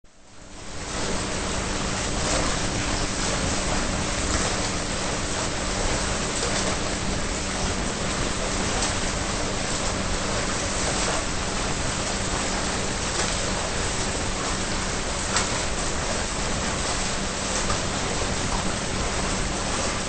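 Steady rushing of churning pool water around a swimmer doing front crawl, with a faint low hum underneath.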